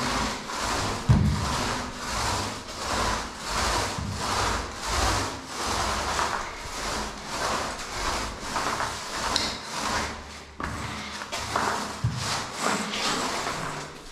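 Paint roller rolling primer back and forth over a wall, a rhythmic rubbing swish of about two strokes a second.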